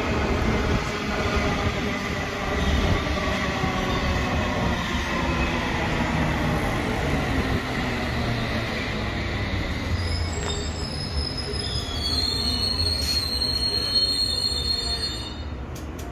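London Underground S7 Stock train pulling into a platform and braking to a stop. Its motor whine falls in pitch as it slows over a steady rumble of wheels on rail. About ten seconds in a high squeal sets in, and it fades as the train halts near the end.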